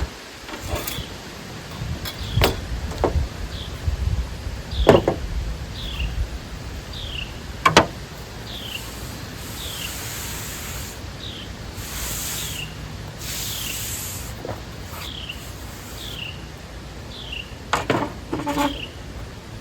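A bird calling over and over with short down-slurred chirps, punctuated by a few sharp knocks, with hissy bursts in the middle.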